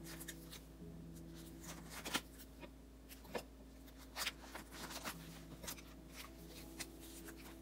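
Photocards being handled and slid into plastic binder sleeves: soft, irregular rustles and light clicks of card against plastic.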